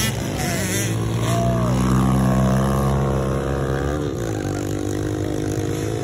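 Small pit bike engines running and revving in a race, their pitch rising and falling, with a brief dip in pitch about four seconds in.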